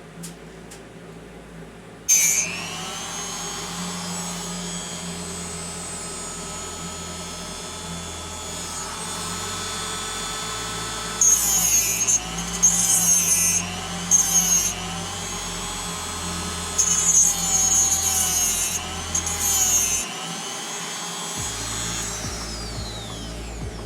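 TIG welding arc on a tube frame: struck with a sharp crackle about two seconds in, then a steady high-pitched buzz that warbles and flares louder in the middle, falling in pitch as the arc is tapered off near the end.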